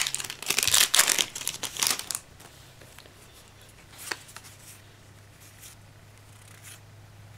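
Foil wrapper of a Yu-Gi-Oh booster pack crinkling and tearing open in quick bursts for about two seconds, then near quiet with a faint click as the cards are handled.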